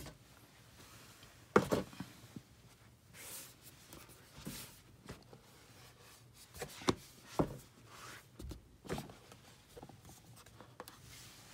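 Cardboard packaging being opened by hand: paper rubbing and sliding, with a handful of light knocks and taps scattered through.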